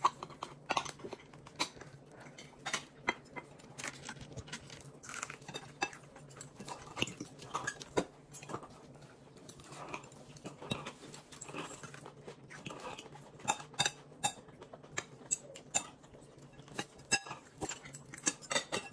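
Cutlery clinking and scraping on plates during a meal: many small, irregular clicks, with chewing in between and a steady low hum beneath.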